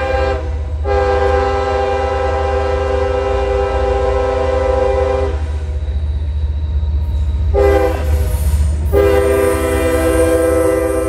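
CSX diesel freight locomotive's multi-chime air horn sounding the grade-crossing signal: the tail of one blast, a long blast of about four seconds, a short blast, then another long blast, over the low rumble of the approaching train.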